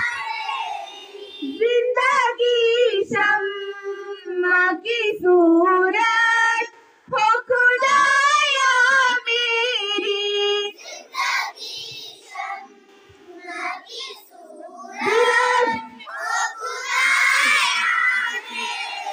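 A group of young children singing together in chorus, in sung phrases with brief pauses between them.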